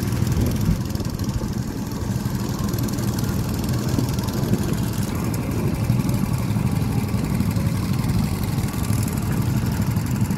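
Small go-kart petrol engines running steadily on the track.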